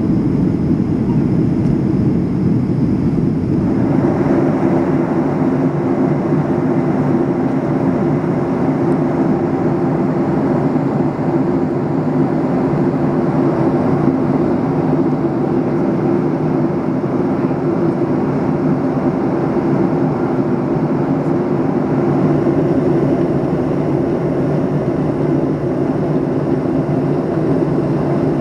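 Steady roar of engines and airflow heard inside the cabin of a Boeing 757 airliner in flight. About four seconds in, the sound changes abruptly and gains a brighter hiss over the low hum.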